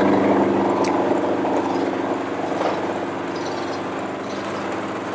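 An engine running steadily at low speed with an even, unchanging pitch, growing gradually fainter.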